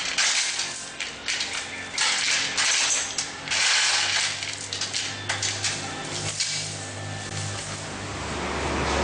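Steel lifting chains rattling and clinking against each other and the engine and gearbox as they are handled, in several short bursts.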